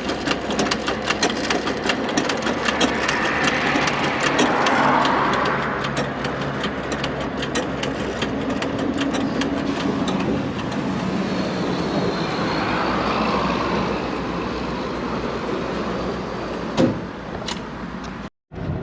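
Gas-station fuel dispenser pump running while fuel is pumped, with a rapid rhythmic ticking ("tucu, tucu, tucu") that thins out after about ten seconds. Engine and traffic noise swells twice underneath it.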